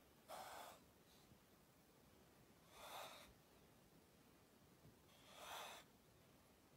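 Small cobra hissing in three short, breathy bursts about two and a half seconds apart, a defensive hiss at being touched on the head.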